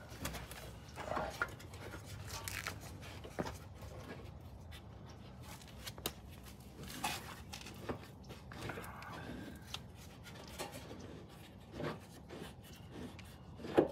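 Faint, scattered clicks and scrapes of a hand tool loosening the top mounting bolt of a rear shock absorber.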